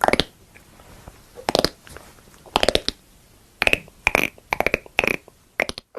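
Mouth sound effects made by a person: a dozen or so short pops and clicks at uneven spacing, several of them in quick pairs.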